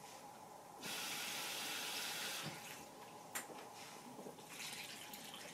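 Kitchen faucet running for about a second and a half as a glass measuring cup is filled with water, then a single sharp click, and fainter water pouring into the slow cooker near the end.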